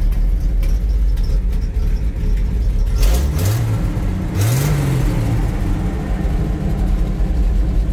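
Chevy T50 cabover truck's engine running, heard from inside the cab, revved up and back down twice in quick succession about three and four and a half seconds in, otherwise idling steadily.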